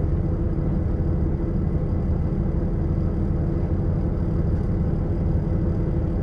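Sightseeing boat's engine running steadily, a constant low hum heard on board.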